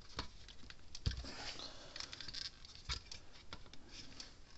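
Hands fitting a capacitor and its wire connector tabs into a plastic fence-charger case: faint, irregular light clicks and taps of plastic and metal parts being handled.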